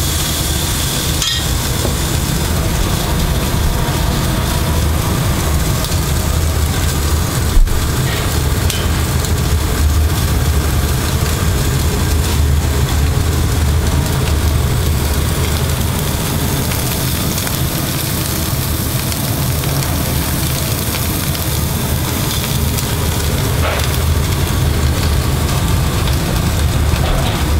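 Turbot steak sizzling in clarified butter on an electric grill's grate: a steady hiss over a constant low hum, with one sharp click about seven and a half seconds in.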